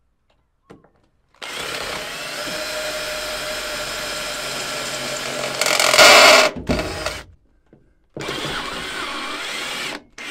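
Cordless drill driver driving screws into a wooden ceiling batten. One run of the motor lasts about six seconds and is loudest near its end, then after a short pause a second run lasts about two seconds.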